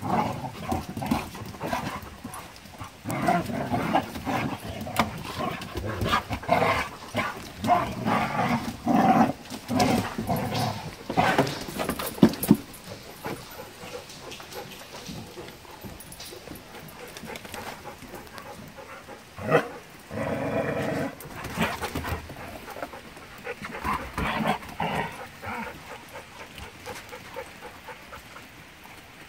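Dogs playing rough together: a busy run of growly dog vocal sounds and scuffles over the first dozen seconds, then quieter, with one longer drawn-out pitched whine about 20 seconds in.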